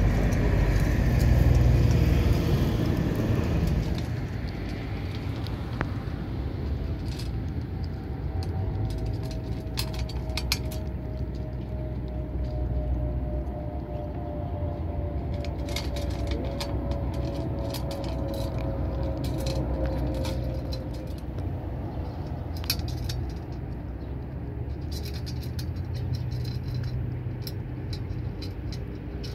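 Steady low rumble of traffic, louder for the first few seconds, with scattered sharp clicks of a cat crunching dry kibble from a steel bowl through the middle and later part. A faint, slightly falling drone is heard in the middle.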